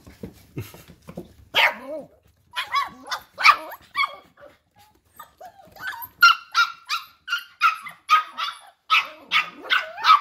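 Mini goldendoodle puppies barking in play: short, high yaps, scattered at first and then coming in a quick run of about three a second over the second half.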